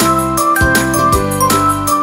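Background music: a melody of high notes over a steady beat.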